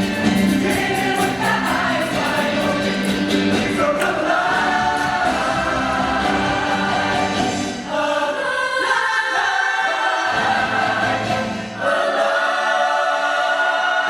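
Show choir singing in full harmony over live band accompaniment, with a steady percussion beat for the first few seconds, then long held chords building toward the end of the number.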